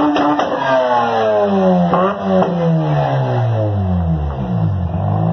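Mazda RX-8 rotary engine revving and falling back, the revs dropping, blipping up once about two seconds in, then sinking and settling toward idle near the end. The owner says its rear rotor has low compression.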